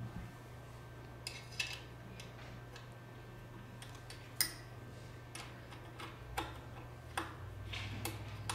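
Irregular small metal clicks and taps as hands work the tamp head's mounting bracket and screws on a label applicator, the sharpest a little under halfway through, over a steady low hum.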